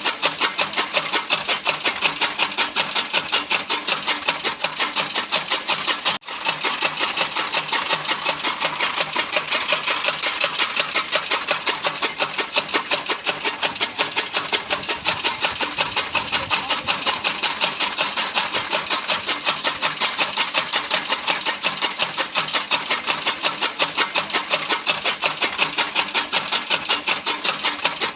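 Fodder cutting machine running, its chopping blades beating in a steady rhythm of about four strokes a second, with a brief break about six seconds in.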